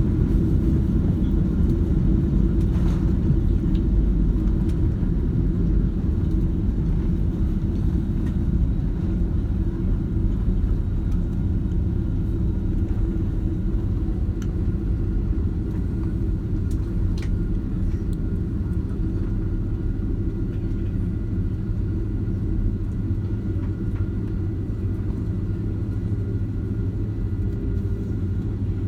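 Cabin noise inside a British Airways Boeing 767-300ER: a steady low rumble of engines and airflow, easing slightly in loudness, with a faint thin steady high tone in the second half.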